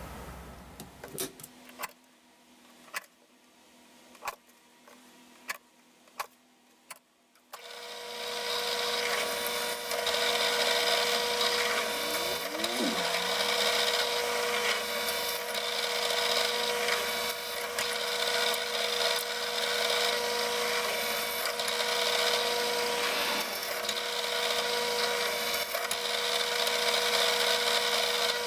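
Several sharp clicks of a center punch marking screw holes in a metal frame, then about eight seconds in a drill press starts and runs steadily with a hum and whine while holes are drilled through the frame.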